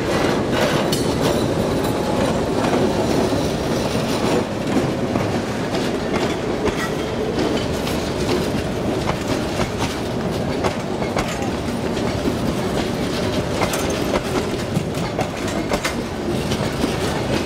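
Passenger coaches of a Myanmar Railways train rolling over a level crossing, the wheels clattering in an irregular run of clicks and clacks over a steady rumble.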